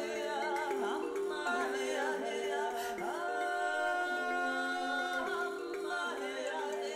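Theme song: a sung vocal melody over a steady held drone note, with one long held sung note starting about three seconds in and ending just past five.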